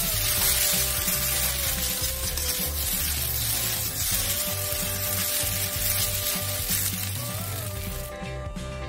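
Instant fried noodles sizzling in a hot wok as they are stir-fried and tossed with a metal spatula. The sizzle cuts off suddenly near the end, leaving only background music.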